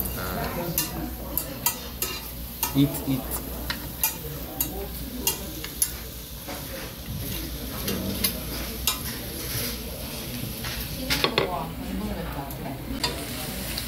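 Beef and scallops sizzling on a tabletop Korean BBQ grill plate, with frequent sharp clicks of metal tongs against the pan and the plates.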